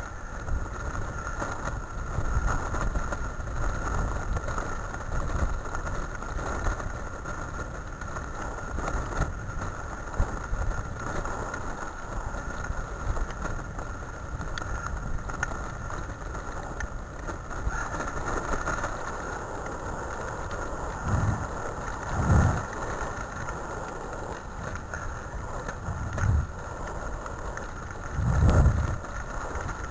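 The rig pulled by a team of Siberian huskies rumbles and rattles steadily over a dirt forest track, with a faint steady high whine above it. A few heavier thumps come in the second half, the strongest near the end.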